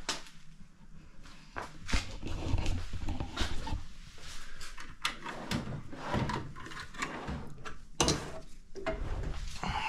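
Rummaging through a metal tool chest while searching for pliers: drawers and lid handled, tools clattering, in a string of irregular clicks and knocks with a couple of low thuds.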